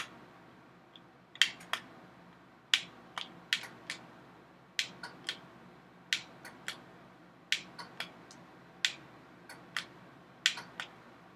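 Remote-controlled power outlet being switched on and off with its remote: sharp clicks, single or in quick pairs, about once a second.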